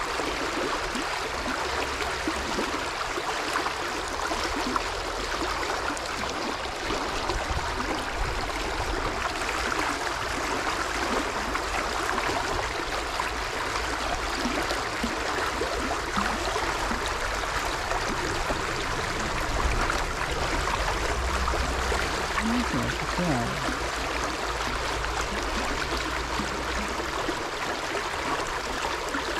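Flowing water of a small river running steadily, a constant even rush.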